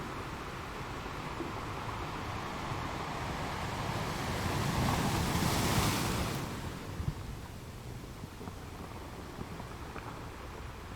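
Ocean surf: a wave swells and breaks about halfway through, a rush of hissing water that then fades back to a steady low wash of the sea.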